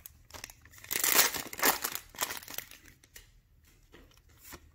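Magic: The Gathering booster pack wrapper crinkling as it is torn open by hand, loudest about a second in, then quieter rustling of the wrapper and cards.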